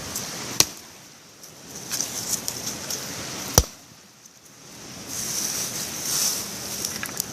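Two sharp cracks about three seconds apart, the second louder and deeper, over rustling and gusts of wind on the microphone.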